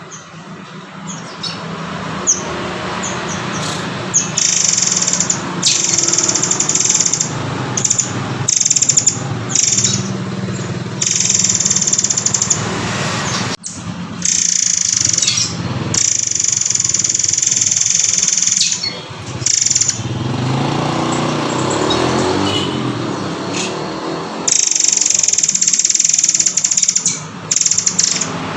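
Recorded song of a murai air (murai kopi) bird: loud, high-pitched phrases of one to three seconds each, repeated with short pauses, over a steady low hum.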